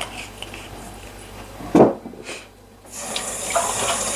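A single knock, like a dish or utensil set down, a little under two seconds in, then a kitchen tap starts running into the sink about three seconds in and keeps running steadily.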